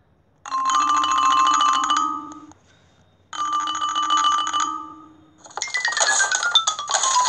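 Cartoon sound effects from a children's story app: a trilling, ringing tone sounds twice, each time for about two seconds. Then a whistle slides downward in pitch over a rapid rattle of clicks.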